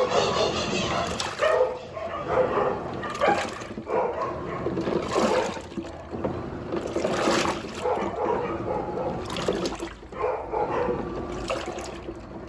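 Sayko top-loading washing machine agitating a load of bedding on its duvet programme: water sloshing and churning in repeated surges every one and a half to two seconds as the agitator swings back and forth.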